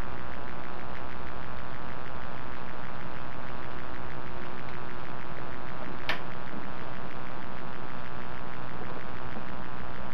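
Steady hiss and low electrical hum from a security camera's microphone, with one short click about six seconds in.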